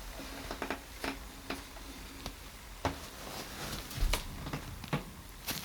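Irregular light clicks and taps of hands handling tools and materials over a faint steady hum, with a few sharper knocks in the second half.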